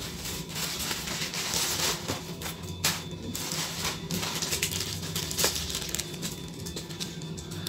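Plastic wrapping and bubble wrap crinkling and rustling as it is handled, with sharper crackles about three seconds and five and a half seconds in.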